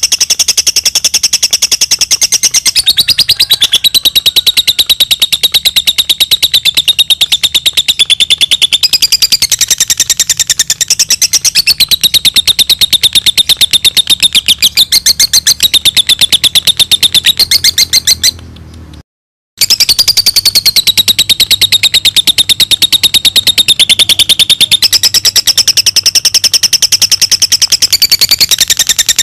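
Lovebird chattering in one long unbroken run of very rapid, high-pitched notes that waver up and down in pitch. The sound cuts out briefly about nineteen seconds in, then resumes.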